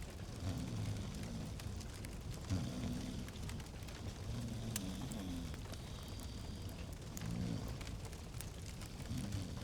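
Fireplace log fire crackling, with scattered sharp pops over a low rumble of flames.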